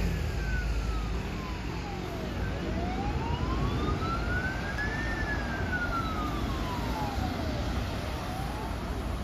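Hong Kong Fire Services Department ambulance siren on a slow wail, its pitch sliding down and back up about every five seconds. Underneath is a steady low rumble of the vehicle and road traffic as it drives past.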